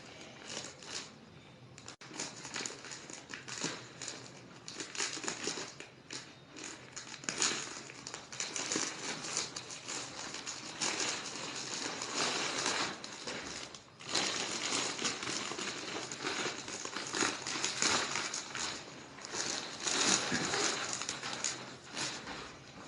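Crinkling and rustling of parcel packaging as it is torn open and handled, in irregular bursts with short pauses.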